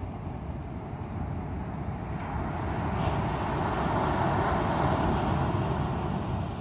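Sea waves breaking and washing ashore over a steady low rumble. A surge builds about two seconds in and eases near the end.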